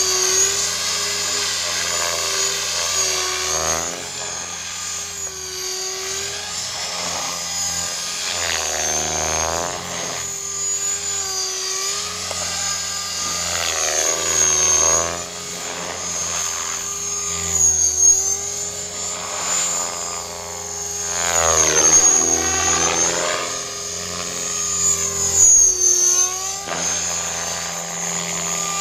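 Align T-Rex 500 electric radio-controlled helicopter flying aerobatics. The rotor and motor whine rises and falls in pitch and loudness as it swoops and flips, with several loud swells in the second half.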